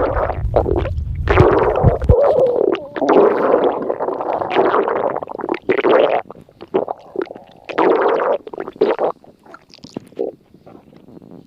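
Upset-stomach sound effect: loud, irregular stomach growling and gurgling, with a deep low rumble underneath that cuts off about two seconds in. After about six seconds the gurgles break into shorter, scattered bursts, and they mostly die away after about nine seconds.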